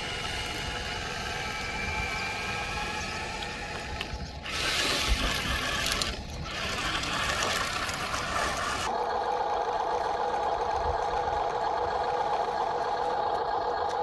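Small electric motors of radio-controlled model construction machines whining, with a few seconds of gravel and dirt rushing in the middle. About two thirds of the way through it turns abruptly into a steadier, lower motor hum.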